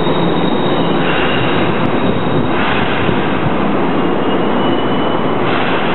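Tokyu trains in an underground station: the rear of a 6000 series express running through, then an 8590 series local pulling in. There is a steady, heavy rumble of wheels on rail, with thin wheel squeals that come and go.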